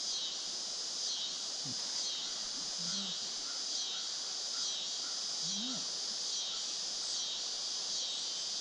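Insect chorus in riverside woods: a dense high buzz that swells and fades about once a second. A few brief, faint, low sweeping calls sound underneath it.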